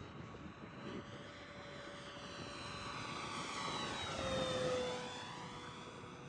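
Electric motor and propeller of an FMS P-47 Razorback RC warbird whining through a low pass. It grows louder and drops in pitch as it flies by about four and a half seconds in, then fades.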